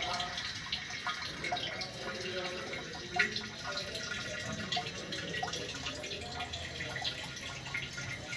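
Petrol dripping and trickling from the opened fuel line at the fuel filter into a plastic canister, with many small splashes throughout.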